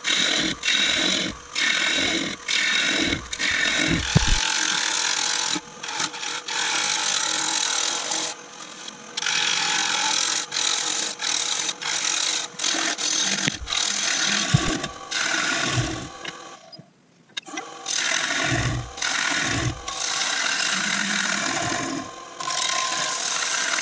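Turning tool cutting the inside of a spinning beech bowl on a Nova Saturn wood lathe: repeated hissing cuts, each a second or two long with short breaks between, over the steady hum of the lathe. There is a brief pause in the cutting about 17 seconds in.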